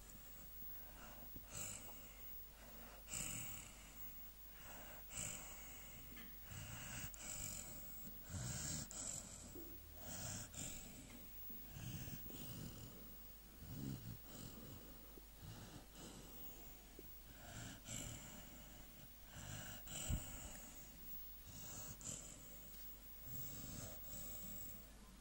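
American Staffordshire Terrier snoring in its sleep: a faint, uneven string of snoring breaths, one every second or two, each with a high hiss. A brief sharp noise about twenty seconds in is the loudest moment.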